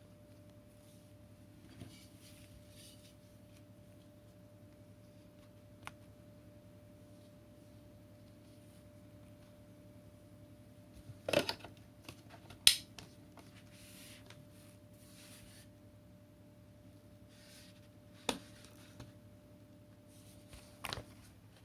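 Six sharp clicks and knocks of hard objects being handled, spaced unevenly over a faint steady hum. The loudest comes about twelve seconds in.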